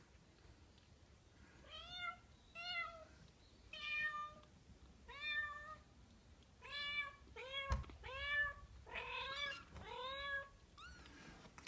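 Kitten mewing about ten times: short, high-pitched mews starting about two seconds in and coming closer together toward the end, with a single knock about two-thirds of the way through.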